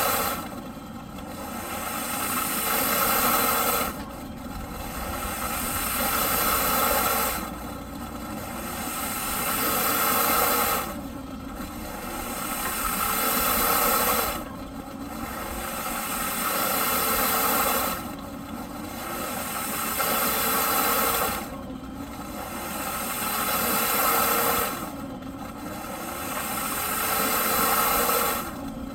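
Eureka PowerSpeed vacuum cleaner's motor running with a regular surge: its hum and rush of air rise in pitch and grow louder for about three and a half seconds, then drop off suddenly, about eight times over.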